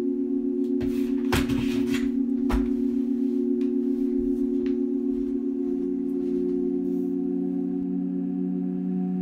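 Original music score: sustained droning tones with a slow pulsing waver. A noisy rush and a sharp hit come between about one and two and a half seconds in, and a lower tone joins about six seconds in.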